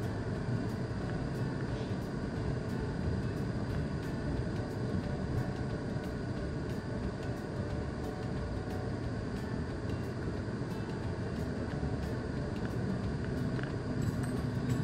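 Steady low rumble of a car's engine and tyres heard from inside the cabin through a dashcam's built-in microphone as the car moves slowly.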